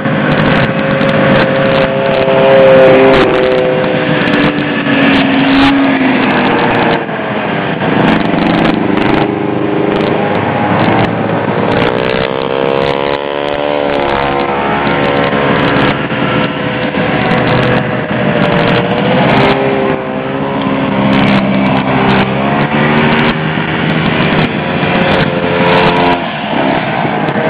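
Several vintage two-stroke snowmobiles run past one after another on a snow trail. Their engine notes overlap and rise and fall in pitch as each machine approaches and goes by.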